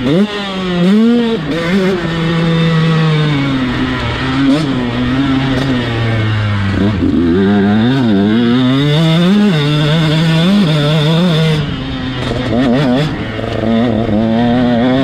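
KTM SX 125's single-cylinder two-stroke engine revving hard under load, its pitch climbing and dropping again and again with throttle and gear changes, falling lowest about halfway through before winding back up.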